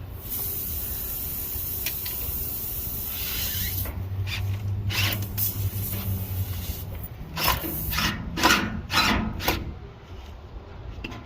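Hand tools working on a plugged tire: a steady hiss for about the first four seconds, then a run of rough scraping, rasping strokes that ends about ten seconds in.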